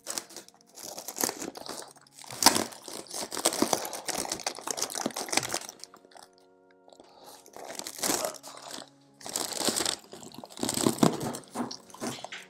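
Plant packaging being pulled open and unwrapped by hand: irregular crinkling and crunching in bursts, with a short lull about six seconds in.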